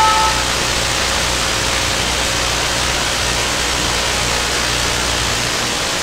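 The last note of a wireless doorbell's chime dies away in the first moment, leaving a steady hiss with a low hum underneath.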